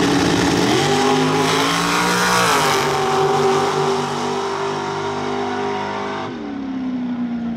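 Dragster launching off the starting line at full throttle and running down the drag strip. Its engine note climbs, drops at a gear change a little under three seconds in, then holds steady before falling off suddenly near the end.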